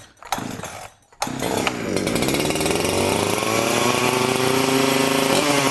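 Huyosen 6524 two-stroke chainsaw, a Husqvarna 365/372 clone, starting about a second in, then revving up and held running at high speed.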